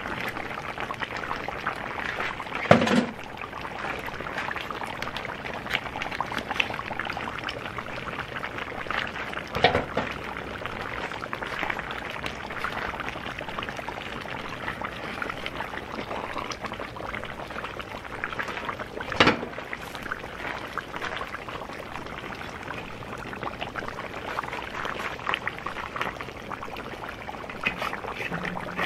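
Beef and onion stew bubbling and sizzling in a cast-iron cauldron over a fire, a steady crackle of small pops. A metal ladle knocks against the pot about three seconds in, again near ten seconds and near nineteen seconds.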